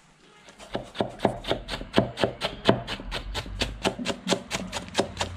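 Kitchen knife rapidly chopping cabbage on a wooden board: a steady run of sharp knocks, about four to five a second, starting about a second in.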